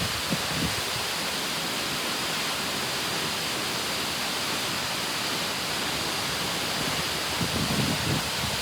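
Waterfall rushing steadily, a dense even roar of falling water, with some brief low rumbling near the end.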